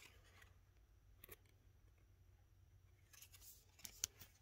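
Near silence, with a faint click about a second in and light rustling near the end: cardboard hang tags on a jersey being handled.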